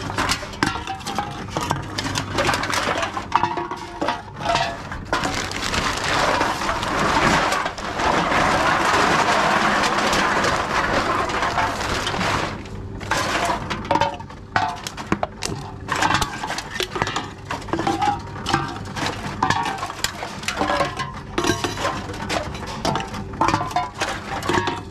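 Aluminium drink cans being fed one after another into a reverse vending machine: cans clinking and knocking against each other and the machine, over the machine's low steady hum. A denser steady rush of noise runs from about 5 to 12 seconds in.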